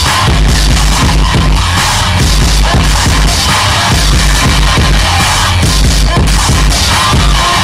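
Loud live industrial noise music: a dense, distorted wall of sound over a heavy pulsing bass beat.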